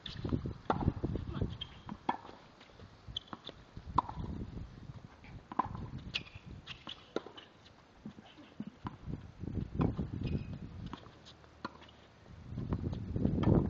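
Tennis ball struck by a racket several times, sharp hits about two seconds apart as in a rally, mixed with the player's footsteps on the hard court.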